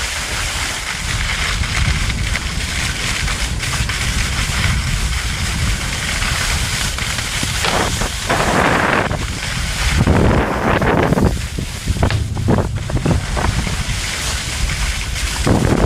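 Wind rushing over an action camera's microphone as the filmer rides a snowboard downhill, with the board scraping over soft snow; several louder surges come in the second half.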